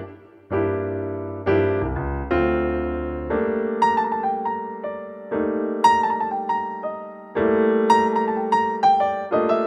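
Background music: a jazz-blues piano tune, with notes struck and dying away over a changing low bass line.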